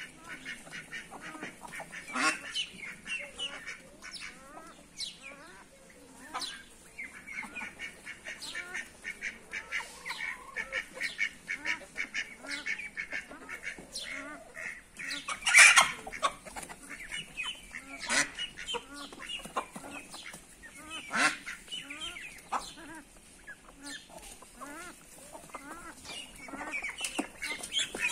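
Domestic goose honking among chickens clucking and chattering: a steady run of short, repeated bird calls, with a few louder honks or squawks standing out.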